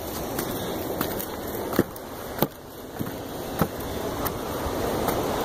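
Footsteps knocking on weathered wooden log steps and loose rocks, one step roughly every half second. A rush of surf and wind grows louder near the end.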